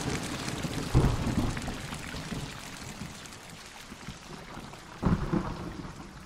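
Film soundtrack of a thunderstorm played over room speakers: steady rain with two low rumbles of thunder, one about a second in and one about five seconds in, each fading away.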